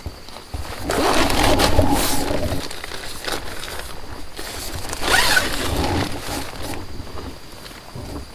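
Tent door zipper being pulled, in two spells about four seconds apart, the first about two seconds long, with rustling of the tent's nylon fabric.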